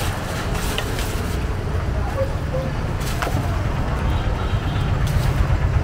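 A steady low mechanical rumble, like a running engine or passing traffic, with a few light crinkles and clicks as a thin black plastic carry bag is handled.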